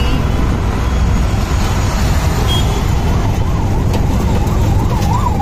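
Engine and road noise heard from the back of a moving auto-rickshaw, a loud steady rumble. About three seconds in a siren starts, quickly rising and falling, and grows louder near the end.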